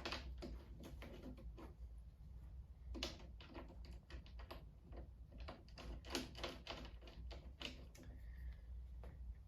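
Faint irregular clicks and taps of small metal parts being handled, as the door hinge is worked on.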